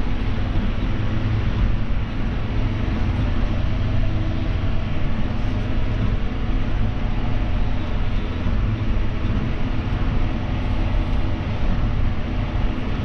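John Deere 6175R tractor's six-cylinder diesel engine running steadily under load, heard from inside the cab as the tractor drives across the field.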